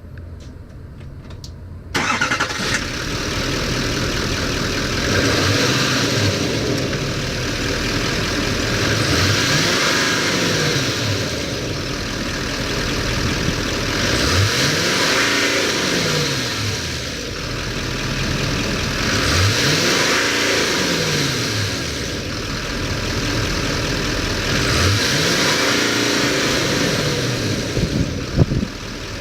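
2011 Chevrolet 3500 truck's engine starting about two seconds in, then running with five revs, each rising and falling back to idle.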